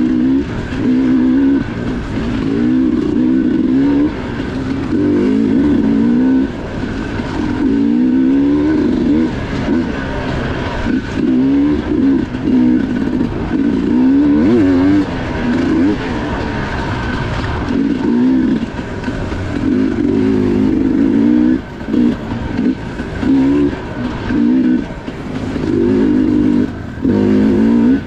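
Two-stroke enduro dirt bike engine revving up and down as it is ridden, its pitch rising and falling over and over with the throttle, with brief drops as it is backed off.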